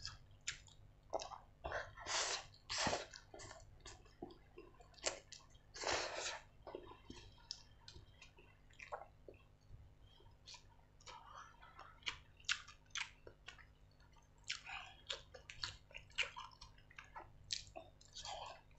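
Close-up mouth sounds of a person eating instant noodles and roast chicken: wet chewing and smacking, with longer, louder slurps about two, three and six seconds in.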